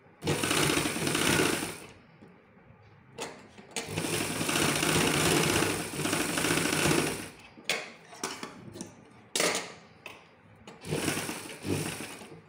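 Black domestic straight-stitch sewing machine stitching fabric in several runs: a short run at the start, a longer run of about three and a half seconds in the middle, a few brief stitches, then another short run near the end.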